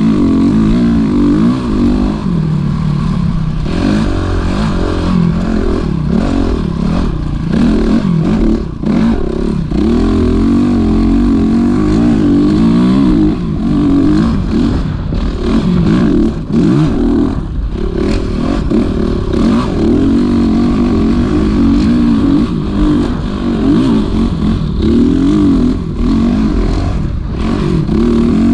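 Honda CRF450RX dirt bike's single-cylinder four-stroke engine being ridden hard, its pitch rising and falling over and over as the rider opens and closes the throttle.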